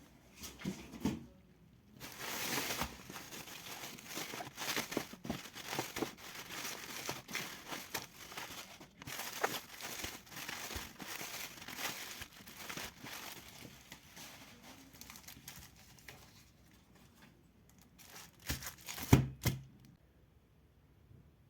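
A shipping package being opened by hand: tearing and crinkling of its wrapping, going on for a good while, then a few sharp knocks near the end.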